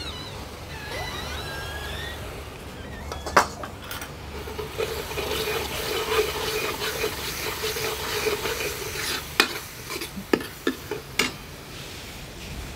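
Metal ladle stirring and scraping spice masala frying in oil in a kadhai, with a steady sizzle and several sharp clinks of the ladle against the pan, most of them in the second half. The masala is being roasted (bhuna) in the oil.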